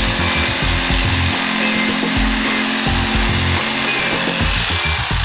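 Corded electric jigsaw cutting through an MDF board, its motor running steadily while the blade saws.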